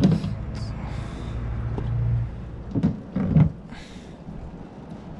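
A sharp knock, then a low rumble lasting about a second, then two more knocks about half a second apart: clunks of work under a car.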